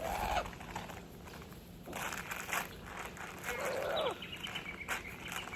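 Wild birds calling: a harsh call at the start and a longer falling call about three and a half seconds in, followed by a quick run of high chirps near the end.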